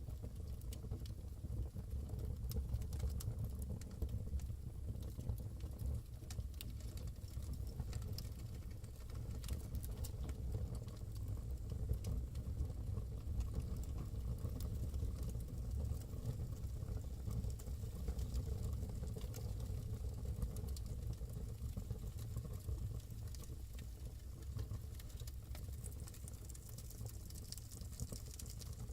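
Wood fire burning in a fireplace: a steady low rumble of the flames with irregular small crackles and pops throughout.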